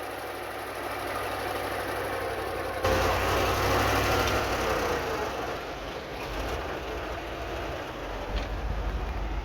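Diesel engine of heavy earthmoving machinery running steadily. It turns suddenly louder and fuller about three seconds in.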